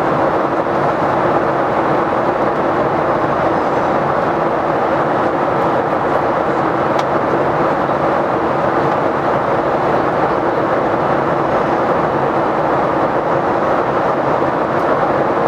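Steady cabin noise inside a Boeing 737-800 in flight: the even rush of the engines and airflow with a low hum underneath.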